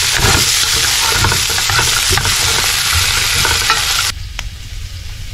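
Pieces of smoked pork and ribs sizzling as they fry in fat in an aluminium cauldron, stirred and scraped with a wooden spatula. About four seconds in the sound drops suddenly to a much quieter hiss with a few sharp clicks.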